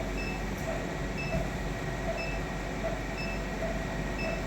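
Theatre equipment beeping: short electronic pips about once a second, alternating between a high pip and a lower one, over a steady machine hum.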